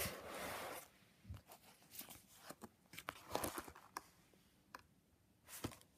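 Paper pages of a ring-bound junk journal being turned and handled: a short rustle at the start, then faint scattered crinkles and taps.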